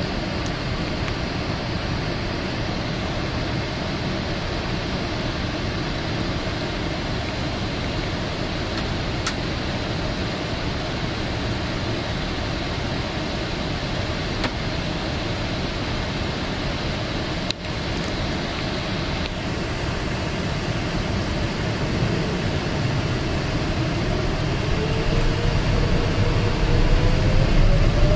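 Cabin noise inside a Boeing 777-300ER: a steady rumble and hiss with the GE90 turbofans at low power. Near the end a rising whine sets in and the noise grows louder as the engines spool up for the takeoff roll.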